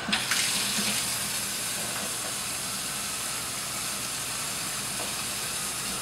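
Moen-style single-handle kitchen faucet turned on just at the start, then water running steadily from the spout into a stainless steel sink. The faucet has just been rebuilt with new O-rings and a new cartridge and is running as a leak test.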